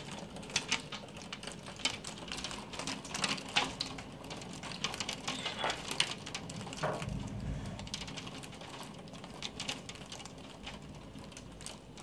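Hailstones striking a window and sill in a rapid, irregular clatter over the hiss of heavy rain. The clatter thins out toward the end.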